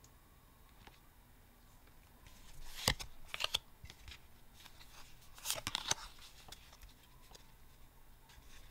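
Yu-Gi-Oh trading cards being handled on a table: two short bursts of rustling and card-on-card sliding clicks, about three seconds in and again about five and a half seconds in.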